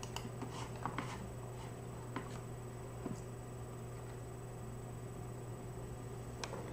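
Quiet room tone with a steady low electrical hum and a handful of faint, sharp clicks and taps, most of them in the first three seconds and one more near the end.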